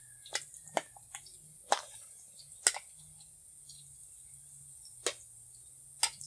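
Wooden chopsticks clicking sharply against the frying pan and batter bowl, about six irregular ticks, while battered baby corn fries in oil with a faint steady hiss.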